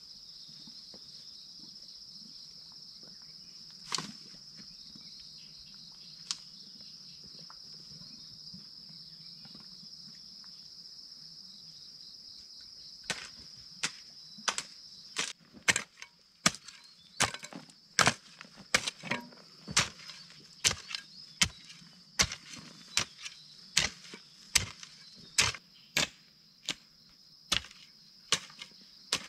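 Steady high-pitched insect noise throughout. From about halfway through, a garden hoe chops into dry soil in a regular rhythm of about two strikes a second.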